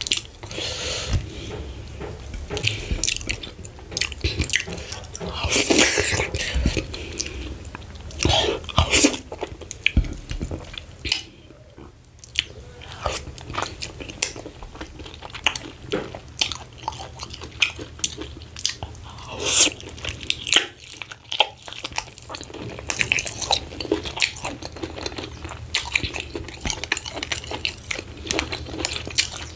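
Close-miked eating sounds: a person biting and chewing pieces of cow skin (ponmo), with many irregular sharp mouth clicks and a couple of short pauses.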